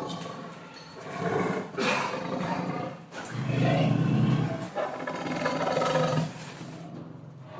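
Lion roaring and growling in several deep calls, the loudest and deepest about three to four and a half seconds in.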